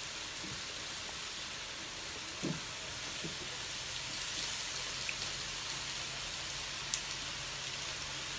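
Mala skewers sizzling on a grill pan: a steady hiss, with a soft knock about two and a half seconds in and a sharp click near the end.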